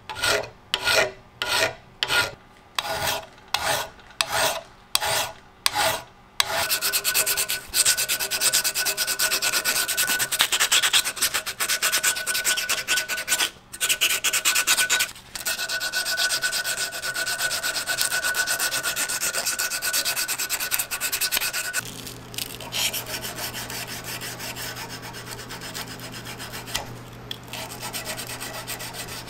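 Round hand file scraping across a steel screwdriver blade in even strokes about twice a second, filing out deep rust pitting. About six seconds in it gives way to fast, continuous hand-sanding with sandpaper on the steel, which goes quieter in the last several seconds as sandpaper backed by a small brass rod is worked along the blade.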